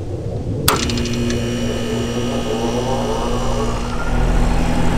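Air conditioner condenser starting up: the contactor pulls in with a sharp clack, then the compressor hums and the motors come up to speed with a rising whine. Near the end the unit's running sound grows deeper and louder.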